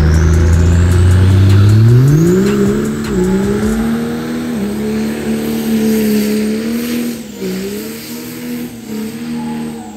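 Diesel pickup truck's engine under hard throttle during a burnout: it holds steady, climbs steeply in pitch about two to three seconds in, then stays at high revs with small dips while the rear tires spin.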